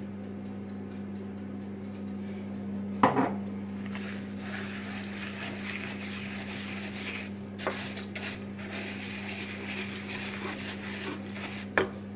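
Wooden spoon stirring rolled oats in a stainless steel pot: a soft, dry rustling scrape, with the spoon knocking against the pot about three seconds in and again near the end. A steady low hum underlies it.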